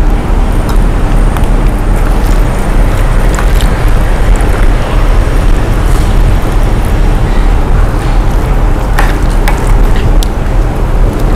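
Steady loud rumbling background noise with a faint hum in it, broken by a few light clicks about nine and ten seconds in.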